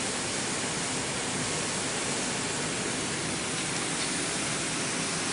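A steady, even hiss of machine noise, with no distinct tone, rhythm or knocks.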